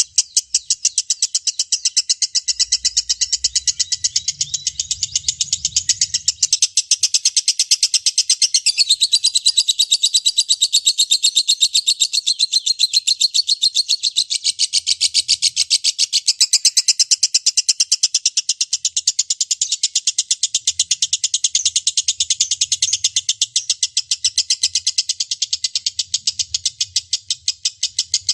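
Lovebird singing a long 'ngekek': a rapid, high-pitched chattering trill of evenly repeated notes, unbroken.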